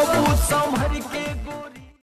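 Bhojpuri pop song playing with a thumping, downward-gliding bass beat. It fades out to silence near the end.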